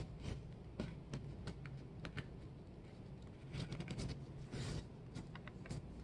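A sheet of paper being folded and creased by hand: faint, irregular crinkles and crackles.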